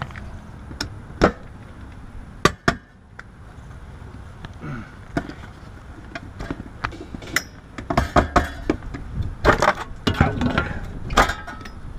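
Scattered sharp metallic clicks and clinks of hand tools against air-conditioner cabinets, capacitor terminals and wiring, a few loud single knocks in the first few seconds and a busy run of clatter near the end.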